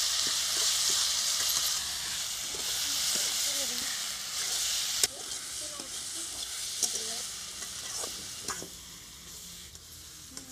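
Mrigal fish and radish slices frying and sizzling in oil in an aluminium kadai while a metal spatula stirs them, scraping and clinking against the pan a few times. The sizzle is strongest in the first half and dies down after about five seconds.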